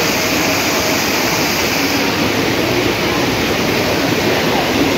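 River water rushing over a rock shelf and small cascades: a loud, steady rush.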